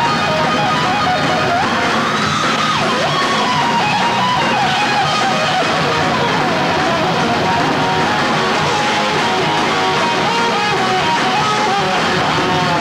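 Heavy metal band playing live, electric guitars prominent, with a melody line that slides up and down in pitch.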